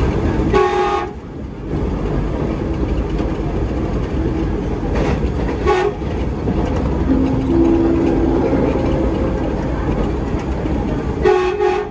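KAI Commuter electric multiple unit (KRL) running along the line with a steady rumble of wheels on rail. A train horn gives a short blast about a second in and again near the end, with a brief toot in the middle. A steady whine steps up in pitch shortly after the middle.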